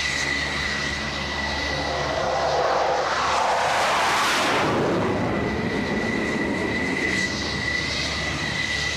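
Jet aircraft passing low overhead under power as it is waved off a carrier landing and goes around. The rush swells to a peak about four seconds in, then fades with a falling pitch as it flies away.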